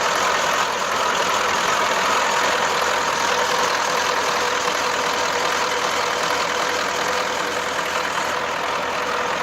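Turbocharged Ural truck's diesel engine idling with a steady hum, two even tones held over the running noise.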